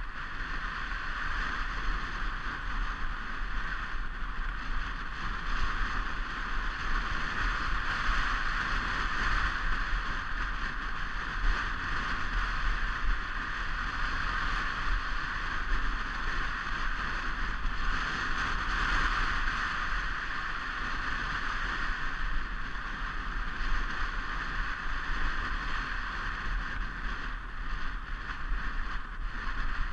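Steady rushing noise of a sled running down a snow-covered toboggan run, its runners hissing on the snow over a low rumble, with wind on the microphone.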